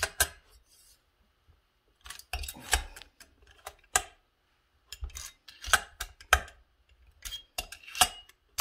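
Irregular metallic clicks and clinks of a T-handle hex key seating in and turning the cylinder base bolts of an Echo CS670 chainsaw as they are tightened down. After a single click at the start there is a quiet gap of about two seconds, then the clicks come in small clusters.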